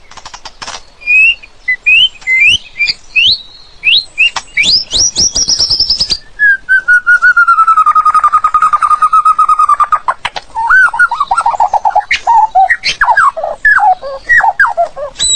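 A murai (Copsychus songbird) singing loudly and varied. It gives a run of short rising whistles, then a long, fast trill held low for about four seconds, then a string of falling whistled notes mixed with sharp clicks.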